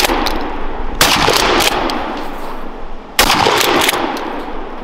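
Shotgun firing buckshot: two shots about two seconds apart, each a sharp blast followed by a long rolling echo that fades away.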